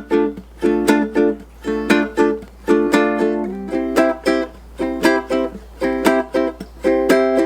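Ukulele strummed in a steady rhythmic pattern, several strokes a second, moving between the song's two chords, D minor and one other.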